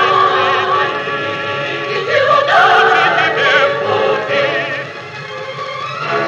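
Choir and variety orchestra playing from a 1960 Soviet 78 rpm gramophone record, the voices singing with vibrato over the orchestra. The music eases off about five seconds in, then swells again.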